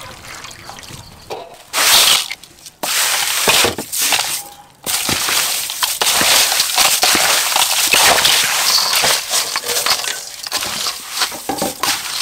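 Crushed ice poured onto sliced mango in a steel bowl and stirred through by hand. The crunching and rustling comes in short rushes about two seconds in, then runs steadily from about five seconds.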